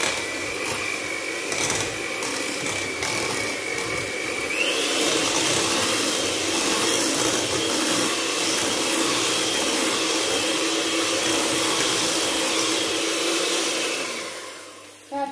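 Tefal electric hand mixer running, its beaters churning boiled potatoes into mash in a steel pot: a steady motor whine that steps up in pitch about four and a half seconds in. Near the end the mixer is lifted out and the motor winds down.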